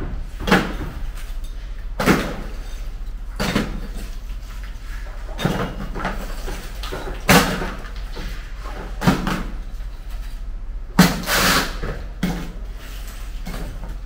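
Chunks of concrete rubble dropped one at a time into a plastic bucket, a clattering knock every second or two, about eight or nine in all.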